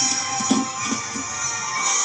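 Music, dense and steady, with a few low drum hits in the first half.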